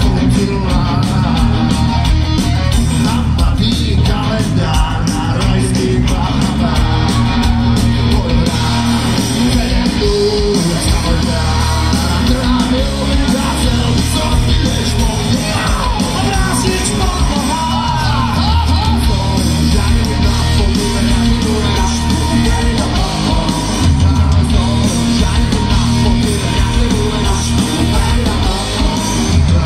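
Rock band playing live on an open-air stage: electric guitars, bass guitar and a drum kit with vocals, loud and continuous through the sound system.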